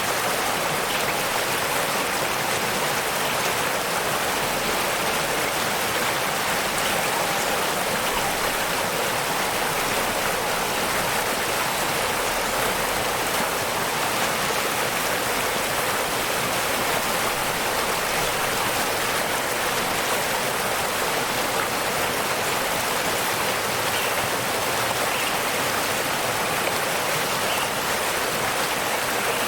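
Waterfall: water falling and rushing in a steady, unbroken hiss that neither rises nor falls.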